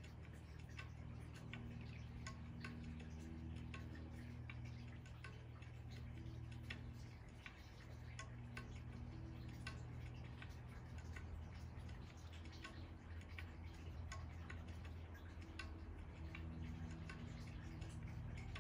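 Faint steady low hum with irregular light ticks scattered through it.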